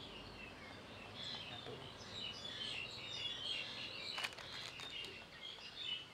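Small birds chirping in the background, a steady scatter of short high chirps, with a few sharp clicks about four seconds in.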